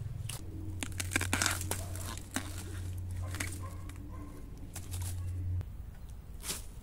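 Dry bamboo leaf litter crackling and rustling as freshly cut bamboo shoots are handled and dropped onto it, in many short irregular crackles. A low steady hum runs underneath and stops near the end.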